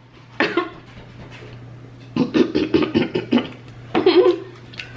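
Short bursts of indistinct talking and vocal exclamations, over a steady low hum.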